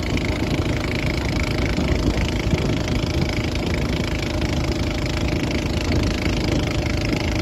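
A boat's engine running steadily at an even speed, with no change in pitch or level.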